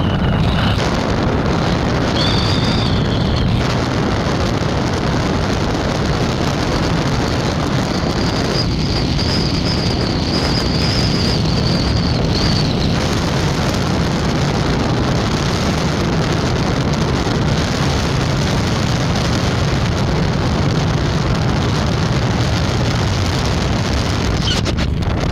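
Steady wind buffeting and rumbling road noise from riding in a moving vehicle. A thin high whine comes and goes over it, lasting about five seconds in the middle.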